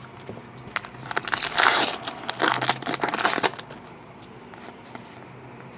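Crinkling and rustling of trading-card packaging being handled, a dense burst of about two and a half seconds with small clicks that dies away near the middle.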